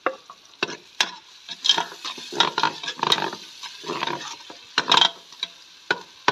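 Metal spoon scraping and clinking against the inside of a metal cooking pot in irregular stirring strokes, over a steady sizzle of onions frying in oil until brown.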